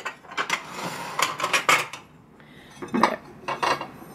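Ceramic plates clinking against each other as they are shifted and lifted off a stack: a quick run of clinks in the first two seconds, then a couple more near the end.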